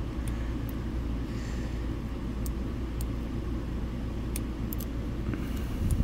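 Scattered faint metallic ticks of a hook pick and tension bar working the wafers of a Reese towline coupler wafer lock, over a steady low rumble.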